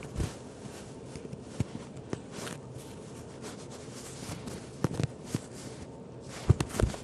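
Soft rustling with scattered light taps and clicks from a kitten play-fighting on a carpet.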